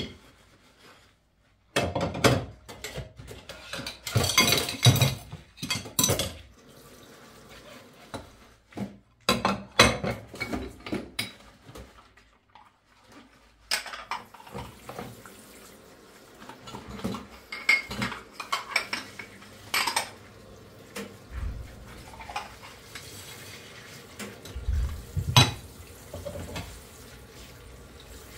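Ceramic plates clinking and clattering against each other and the stainless-steel sink as they are hand-washed and stacked. The knocks come in irregular bursts, starting a couple of seconds in, with some water noise between them.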